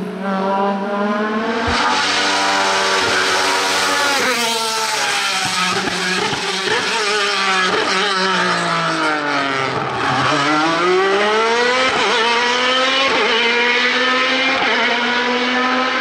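Racing engine of an Alfa Romeo 155 touring car at full throttle on a hillclimb, rising through the gears with sharp drops in pitch at each change. About ten seconds in the revs fall away under braking for a bend, then climb again as it accelerates out.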